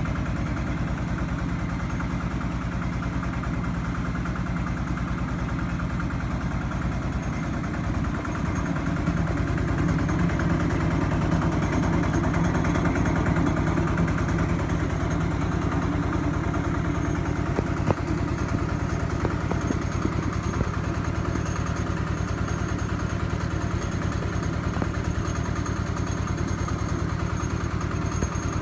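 Single-cylinder diesel engine of a two-wheel walking tractor running steadily under load, belt-driving a small rice hulling mill. It grows somewhat louder from about eight seconds in until about sixteen seconds, and there is one sharp click about eighteen seconds in.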